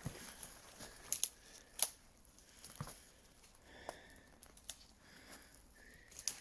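A few sharp cracks and snaps of dry twigs and bark, scattered and faint, as a dead log is cleaned off by hand; the loudest come about one and two seconds in.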